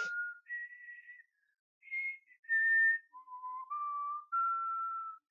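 A whistled tune: a slow run of single held notes with a short pause about a second and a half in. The notes drop lower around the three-second mark and climb again toward the end.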